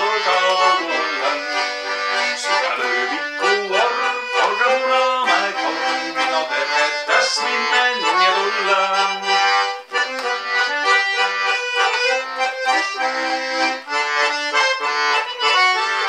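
Bandoneon playing an instrumental passage of a folk song: a melody over pulsing chords in the lower register.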